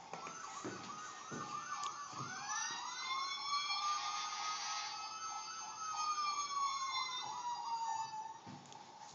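Electronic siren of a Kid Trax ride-on toy fire truck: a fast warble with a slower wail rising and falling over it, cutting off near the end.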